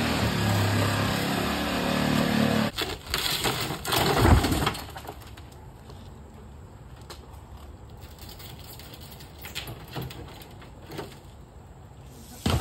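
Shattered laminated car windshield crunching and crackling as it is pulled off the frame and handled. It is loud for the first few seconds and again briefly about four seconds in. After that there are only scattered light clicks and rustles.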